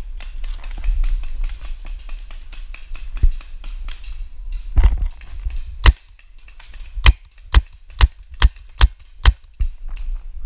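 Paintball markers firing: a patter of rapid, fainter pops for the first half, then a run of sharp, loud shots about two a second in the second half.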